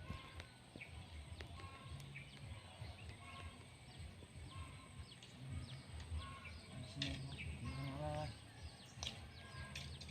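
Birds calling: many short, falling chirps, with a lower, fuller call about eight seconds in.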